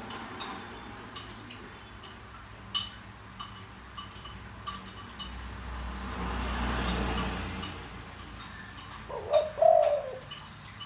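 Spotted dove cooing: one deep coo phrase near the end, a short note then a longer falling one. Short high chirps from small birds are scattered throughout, and a low rumble swells and fades midway.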